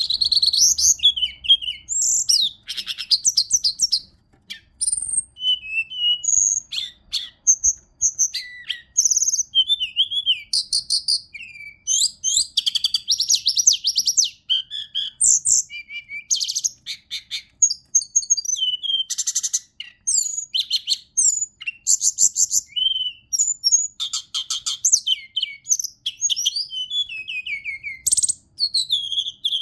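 Hill blue flycatcher (Cyornis whitei) singing without a break: a long run of varied high phrases mixing whistled notes that rise and fall, quick trills and rapid stuttering runs.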